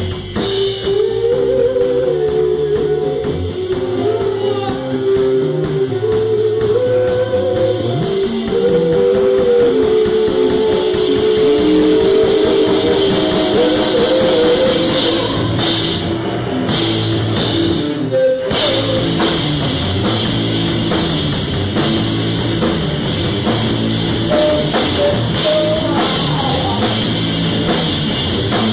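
Rock band playing live: a drum kit and guitar carry a moving riff, with a short break in the music about two-thirds of the way through.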